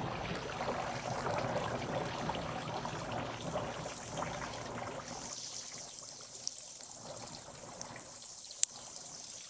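Water trickling from drip irrigation tubing with the zone switched on, with a single sharp click near the end.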